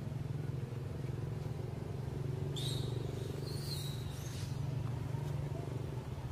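A steady low motor hum, like an idling engine, with a high-pitched squeal lasting about two seconds from about two and a half seconds in.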